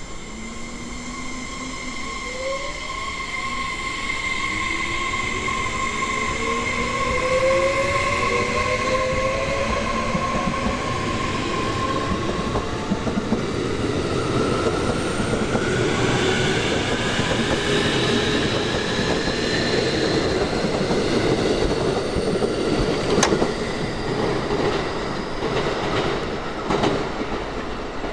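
Electric train pulling away and picking up speed: its motor whine rises in pitch in several stepped tones while the running noise grows louder. Near the end the wheels give a few sharp clacks.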